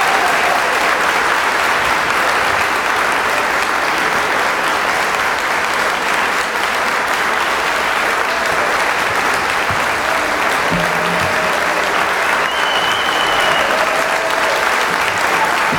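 Audience applauding steadily and at length, a dense, unbroken clapping that holds its level throughout.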